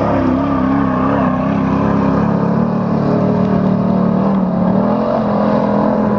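Engine of an autocross racing truck or buggy running hard on the track. Its pitch wavers up and down in the first couple of seconds with the throttle, then holds steadier.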